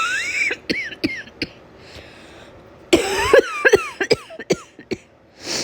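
A woman coughing in two fits from a summer cold with a scratchy throat: a run of coughs at the start, then a second, longer run of sharp coughs about three seconds in.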